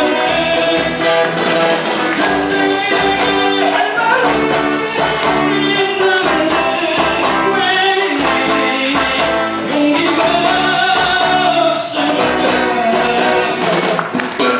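Live band playing a Korean 1970s–80s-style pop song, with a voice singing over the instruments.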